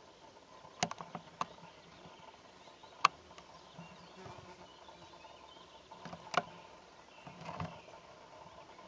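Faint outdoor background broken by a few short, sharp clicks: a few about a second in, the loudest around three seconds in, another past six seconds, and a softer rattle near the end.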